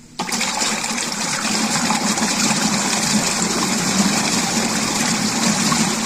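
Newport Vessels 36 lb thrust electric trolling motor starting about a quarter second in and running steadily in the opposite direction. Its propeller churns the water in a small test barrel: a loud, even rush of water over a steady motor hum.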